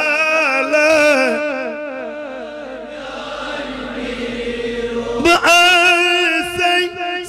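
A solo voice singing a devotional chant in long, wavering held notes. The singing grows softer in the middle and comes back with a loud long note about five seconds in.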